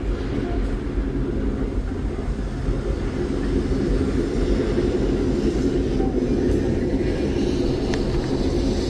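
Themed sound effect of a lava-drilling machine: a loud, steady mechanical roar with a heavy low rumble that slowly builds, and a faint click about eight seconds in.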